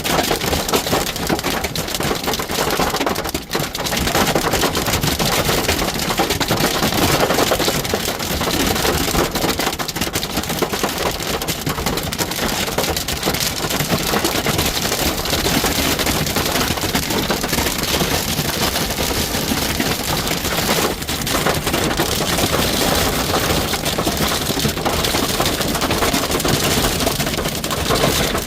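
Golf-ball-size hail and heavy rain hitting a truck's roof and body as a dense, continuous clatter of impacts, heard from inside the cab. The hail is hard enough to dent the truck.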